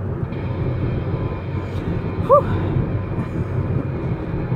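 Car cabin noise while driving: a steady low road and engine rumble. About two seconds in there is one brief pitched blip.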